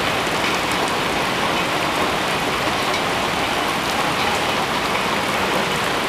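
Steady rain falling on a gravel driveway, an even hiss of drops.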